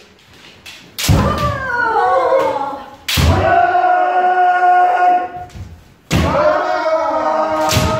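Kendo kiai shouts, three in a row, each starting with a sharp impact from a bamboo sword strike and foot stamp. The shouts are long and loud, and the middle one is held at a steady pitch.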